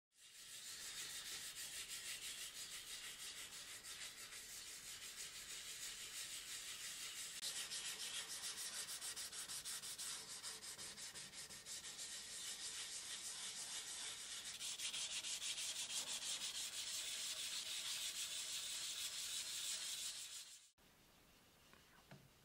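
Fine abrasive paper rubbed by hand over the old shellac finish of a wooden chair frame, a steady dry scrubbing that cuts off suddenly near the end. It is the light sanding-back of the old shellac polish before it is refreshed.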